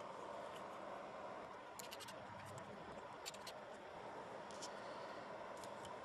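Faint, scattered small clicks and scrapes of a tiny T1 Torx screwdriver working the screws of a BlackBerry Torch 9800 smartphone, over steady low room hiss.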